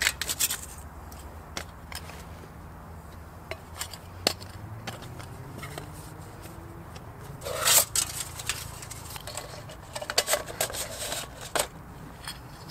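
Camping cook kit being unpacked from a soft pouch and set on a thin plastic chopping board. Scattered light clicks and taps, with a short scraping rustle a little past halfway and a quick run of clicks near the end.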